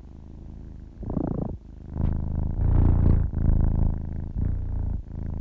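Kitten purring, close up, the purr swelling and easing with each breath about once a second.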